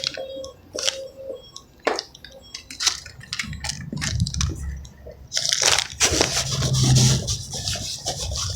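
Close crunching and rustling of food and its packaging being handled and eaten, with scattered clicks at first and denser rustling from about five seconds in.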